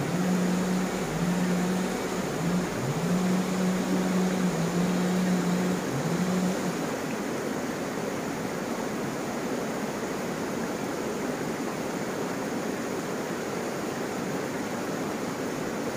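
Steady rush of a shallow, rocky river flowing. For the first six seconds or so, a low hum sounds with it, breaking off and starting again several times before it stops.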